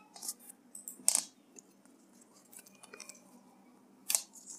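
A handful of sharp clicks and crackles over a faint steady low hum. The loudest click comes about a second in and another strong one near the end.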